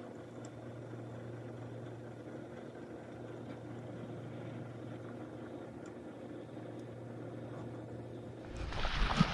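A small electric motor humming steadily, one low pitch with fainter overtones. Near the end the sound cuts to louder footsteps crunching on gravel.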